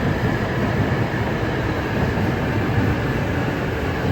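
Hayabusa Shinkansen bullet train running into the platform, a steady rushing rumble of the train passing.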